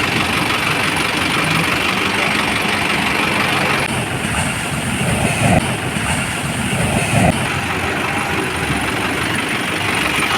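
A fishing boat's outboard engine running over steady surf noise, with two brief louder swells about five and seven seconds in.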